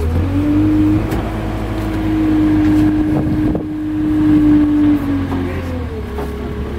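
Kubota tractor engine revving up as the front-loader hydraulics lift the bucket. The revs hold steady for about five seconds, then drop back to idle near the end.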